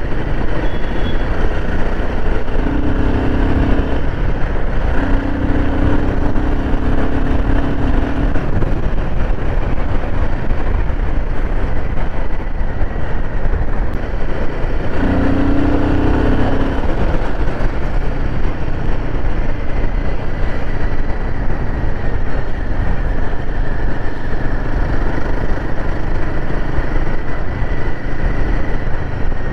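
Royal Enfield Himalayan 450's single-cylinder engine running steadily at cruising speed, mixed with wind and road noise on a helmet-mounted action camera. A low held tone rises out of the noise a few times, for one to three seconds each.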